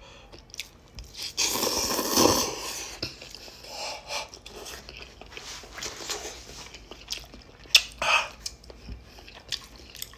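A person eating hot and spicy chicken ramen with pork skins close to the microphone: a loud noisy stretch of eating about a second and a half in, then chewing and crunching with wet clicks.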